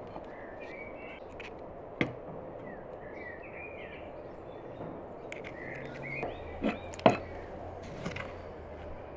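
Small birds chirping in short bouts over a steady outdoor background, with a few sharp taps of utensils on crockery during food preparation, the loudest a pair about seven seconds in.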